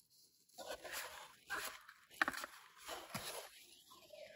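Small cardboard box being handled and its lid slid off, with scraping and rustling and a sharp click about two seconds in.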